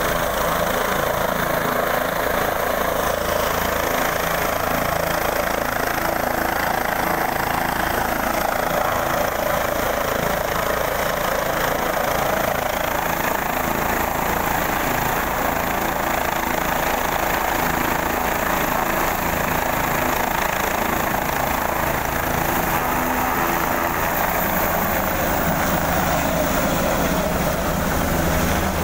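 Light turbine helicopter running on the pad with its rotor turning: a steady, loud blend of turbine whine and rotor noise. Near the end the whine rises in pitch and the low rotor sound grows as it lifts off.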